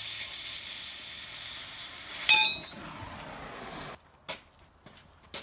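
Handheld cutting torch hissing steadily as it cuts through steel plate. A little past two seconds a loud metallic clink rings out, and the hiss carries on lower until it cuts off about four seconds in. A few faint knocks follow.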